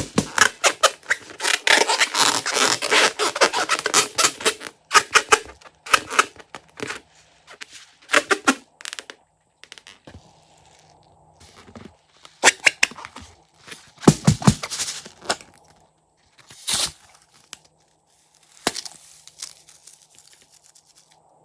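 Crunchy slime being squeezed and worked by hand, giving dense crackling and crunching for the first few seconds, then shorter crackly bursts with pauses between them.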